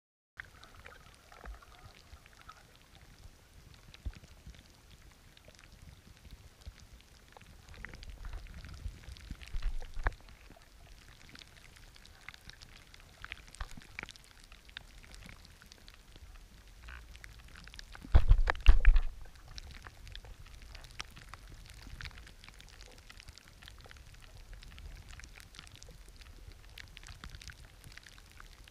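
Underwater sound picked up by a camera following a trolled lure: a faint watery wash with scattered clicks and crackles, and low thumping bursts about nine seconds in and, loudest, around eighteen seconds in.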